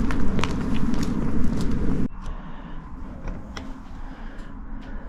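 A loud low rumbling noise with scattered clicks cuts off abruptly about two seconds in. What follows is a quieter background with a few sharp clicks and light knocks.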